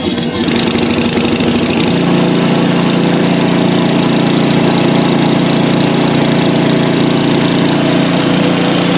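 PowerSmart 24-inch gas snowblower engine, just started cold after priming. It runs unevenly at first and settles into a steady run about two seconds in.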